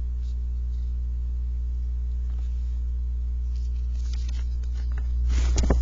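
Steady electrical mains hum, a low drone with evenly spaced overtones. About five seconds in, the paper sheet is handled and rustles briefly.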